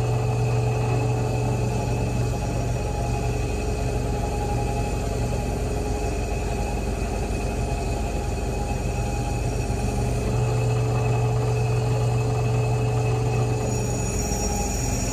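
Drill press running a wire wheel brush, with the steel butt plate of an 1873 Springfield trapdoor rifle held against it to scrub off rust loosened by boiling. The machine sound is a steady hum with brushing over it, dipping a little about two seconds in and rising again about ten seconds in.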